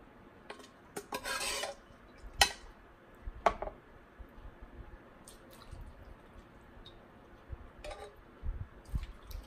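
Metal ladle scraping and clinking inside a saucepan as thick soup is scooped and knocked out into a bowl. There are a few sharp clinks and a short noisy rush about a second in.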